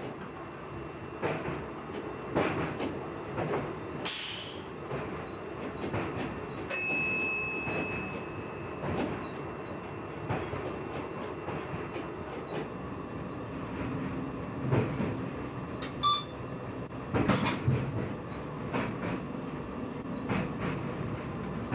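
Dutch Railways (NS) train running along the track, a steady rumble with irregular clicks of the wheels over the rails. A brief high steady tone sounds about seven seconds in.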